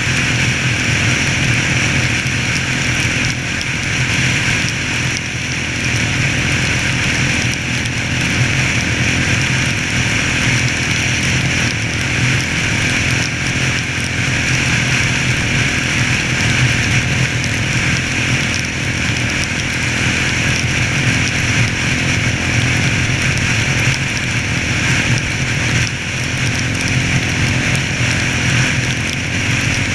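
Yamaha Raptor 700's single-cylinder four-stroke engine running steadily under load at cruising speed, with no marked revving or gear changes.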